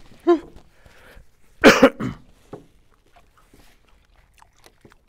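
A man coughs: one loud cough about two seconds in, with a smaller one right after it, then only faint small clicks.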